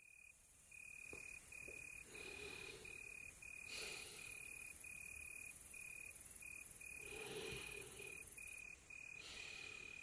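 Crickets chirping in short, even pulses, about two a second, with one steady high pitch. The sound fades in at the start and stays faint.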